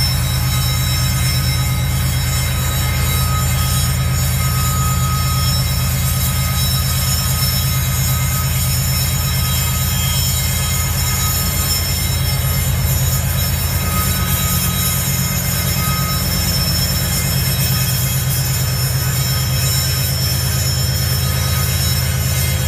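Mid-train GE ES44AC diesel locomotives at full throttle on a heavy coal train climbing a snowy grade, with a deep, steady engine rumble. Over it runs a thin, steady squeal and grinding from the wheels slipping on the snow-covered rail under full power.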